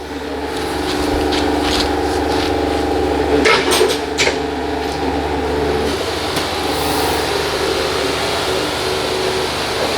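Cordless electric pump sprayer running steadily while spraying enzyme pre-spray onto carpet, a motor hum with a few light clicks a little under four seconds in.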